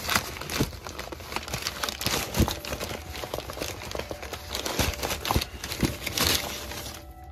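Crumpled kraft packing paper rustling and crinkling as a hand digs through it inside a cardboard box, with irregular crackles and a few knocks against the cardboard.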